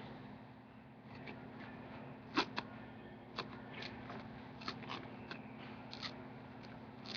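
X-Acto craft blade cutting through a block of foam: faint, irregular little clicks and crunches, roughly one or two a second.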